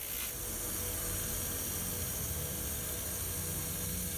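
Bench grinder motor running steadily with a low hum, driving a leather polishing wheel as steel scissors are held against it, giving an even hiss.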